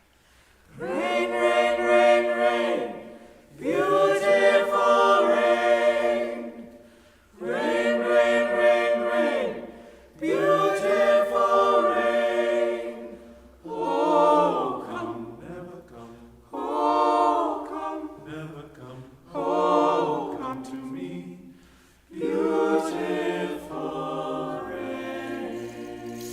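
A vocal ensemble singing a cappella, in a series of phrases of held, harmonised chords with short breaths between them, the later phrases softer than the first ones.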